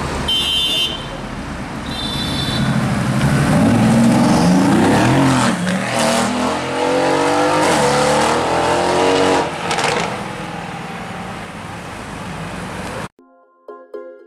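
Mercedes-AMG GT S's twin-turbo V8 accelerating hard, its engine pitch rising and dropping through several gear changes, with a few sharp cracks from the exhaust, then fading as the car pulls away. The sound cuts off abruptly about thirteen seconds in.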